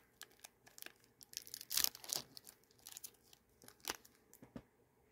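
A KitKat bar's wrapper being torn open and crinkled by hand: a run of sharp crackles and rustles, busiest about two seconds in, with another crackle near the end.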